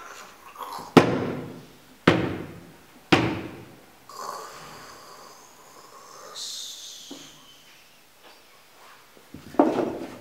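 Three sharp knocks about a second apart, each ringing out briefly, then a stretch of airy hissing, and another knock near the end.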